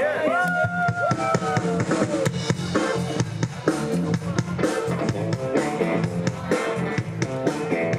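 Rock band playing live: a drum kit keeps a steady beat under bass and guitars, with a held note that bends down slightly over the first two seconds.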